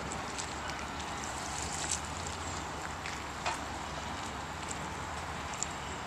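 Outboard motor idling on an aluminium cabin boat moving slowly at low speed, a steady low hum, with wind rushing on the microphone and a few faint sharp ticks.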